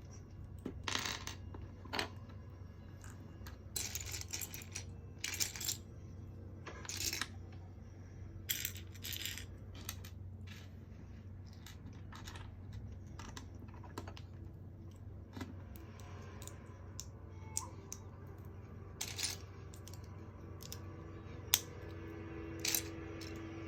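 Small plastic LEGO pieces clattering and clicking in irregular bursts, as bricks are picked through and handled.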